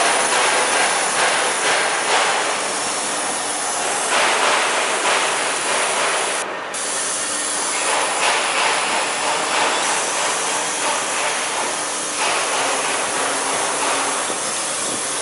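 CNC foam contour cutting machine running: a steady, loud mechanical noise, like a hiss, that swells and eases every second or two.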